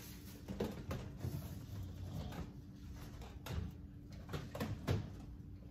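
Household items being handled on pantry shelves: scattered light knocks and clicks of packages and containers set down and moved, with some rustling, over a faint steady hum.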